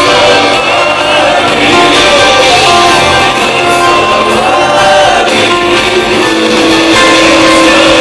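Loud live Christian praise music: a band with several singers, with some shouts from the crowd.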